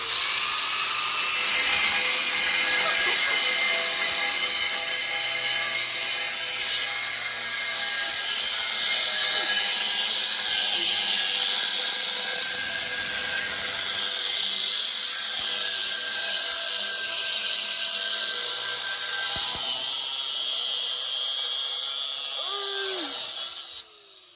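Angle grinder with a cut-off wheel cutting through a steel exhaust tip: a continuous high whine with a harsh hiss. It cuts off suddenly near the end.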